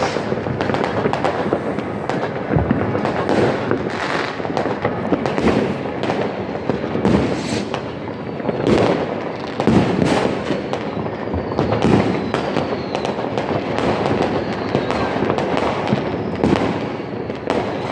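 Fireworks and firecrackers going off all around in a continuous barrage of overlapping bangs and crackles. A few faint falling whistles come through in the second half.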